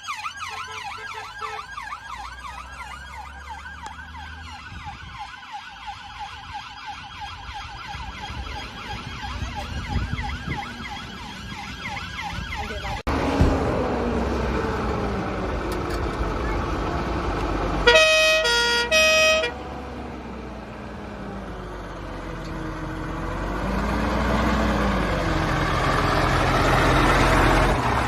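Emergency vehicle sirens on departure: a fast yelp siren fades away over the first half. Then a slow wail rises and falls, broken by a short blast of two-tone horns about two-thirds of the way in. Near the end the wail grows louder over the rumble of a heavy engine.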